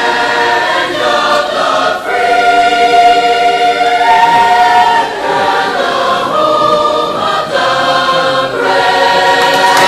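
School choir singing long held chords, the chord changing every second or two.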